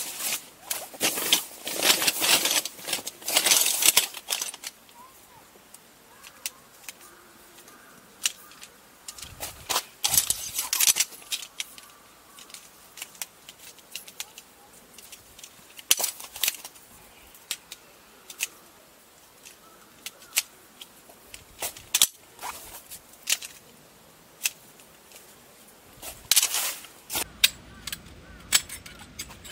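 Tarp groundsheet being handled and spread out: bursts of rustling and crinkling in the first few seconds, again around ten seconds in and near the end, with scattered sharp clicks and knocks of camping gear between them.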